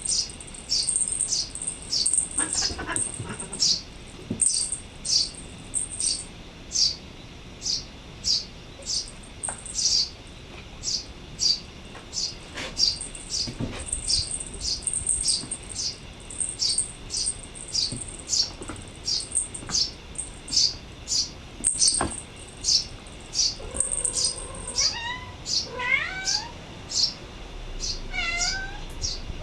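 A small bird calling over and over, about two short, high, downward-sliding chirps a second. Near the end a cat answers with a few short chirping meows that slide up and down in pitch.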